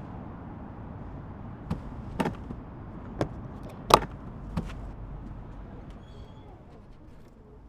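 Metal latches on a hard guitar case being flicked open: five sharp clicks over about three seconds, the fourth the loudest, over a steady low background rumble.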